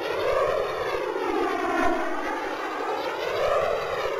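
Airplane engine sound effect: a steady drone whose pitch rises and falls slowly, about once every three seconds.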